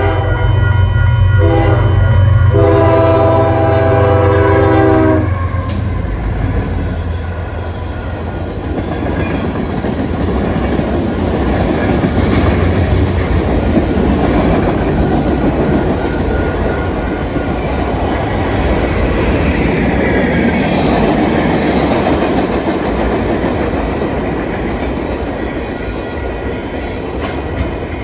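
Diesel locomotive horn sounding over the low rumble of the engines, broken twice briefly near the start and then held for about three seconds until it stops about five seconds in. After that the train rolls past with a steady clickety-clack of wheels on the rail joints.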